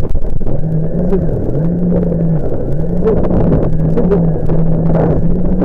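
Jet ski engine revving, its note rising and falling several times as the throttle is opened and eased off.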